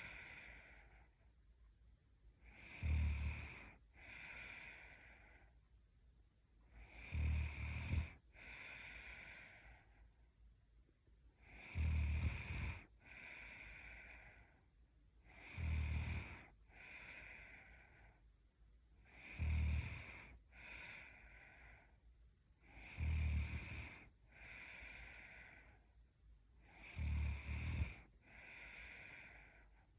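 A young woman snoring in her sleep: seven snores about every four seconds, each loud snore followed by a softer breath out.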